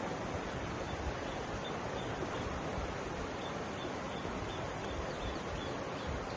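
Mountain river flowing, a steady rushing of water over rocks, with gusts of low rumble and faint, evenly repeated high chirps in the background.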